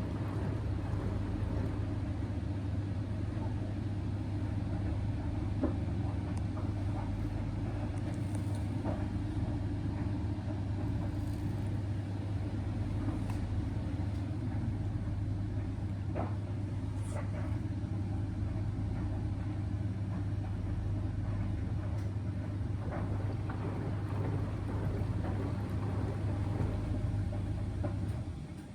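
A laundry appliance's motor running with a steady low hum and a few faint clicks, then cutting off sharply about a second before the end.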